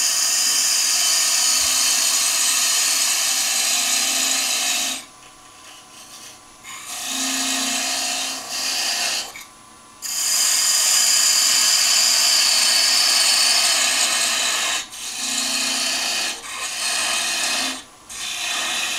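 Parting tool cutting into spinning wood on a lathe to part off a turned finial, a hissing scrape. It runs about five seconds, stops, then comes back in several shorter passes with pauses, where a low steady hum is left.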